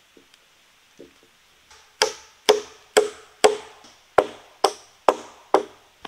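Hammer blows on a frame of sawn wooden boards: eight sharp strikes at about two a second, each with a short ring, starting about two seconds in.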